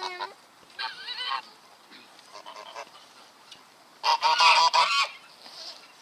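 Domestic goose honking: a short call about a second in, then a louder run of honks lasting about a second, starting about four seconds in.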